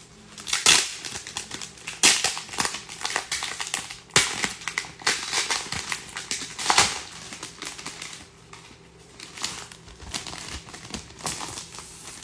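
Clear plastic sleeve crinkling as a photo book is pulled out of it, in a run of irregular scrunches. The loudest come in the first seven seconds, and it goes quieter after that.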